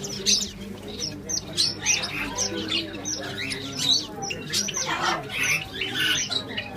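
Many small cage birds, canaries among them, chirping and squawking over one another in a busy, unbroken chatter of short high calls.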